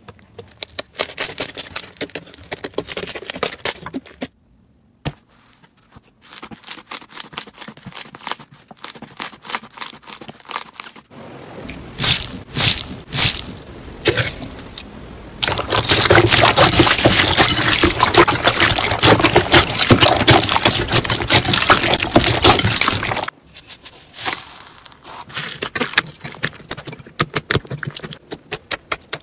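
Slime squished and pressed by hand, giving trains of sticky clicks and pops. From about halfway through, for about seven seconds, comes a dense, loud crackling as a finger presses into slime packed with tiny jelly beads.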